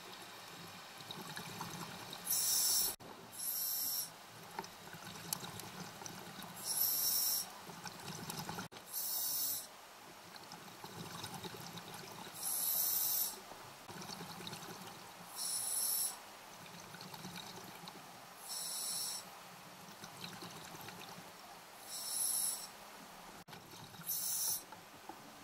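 Scuba diver breathing through a regulator underwater: about nine short hissing, bubbling rushes of exhaled air every two to four seconds, over a low steady underwater rumble.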